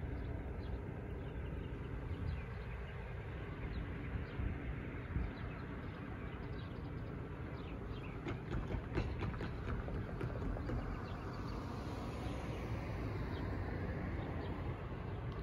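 Outdoor traffic ambience at a railroad crossing: a low steady rumble, a car driving over the tracks with a run of clicks and knocks about eight seconds in, and faint bird chirps.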